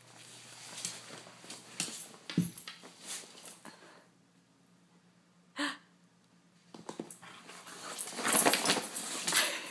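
Corgi tugging and mouthing at her dog coat: the coat's fabric rustles and scuffs, with a thump about two seconds in, one short sharp sound about halfway, and the loudest rustling near the end.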